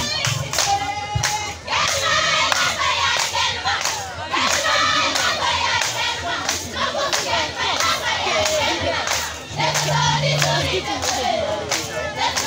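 A group of voices singing and chanting together in a traditional dance song, with shouts among them, over a quick, steady rhythm of sharp percussive beats.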